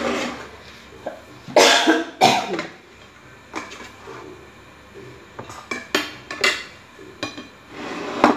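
A person coughs twice, sharply, about two seconds in, followed by scattered light clinks of a spoon on a plate as a whole cooked chicken is pulled apart.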